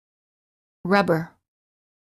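Only speech: a voice saying the single word "rubber" about a second in, with silence around it.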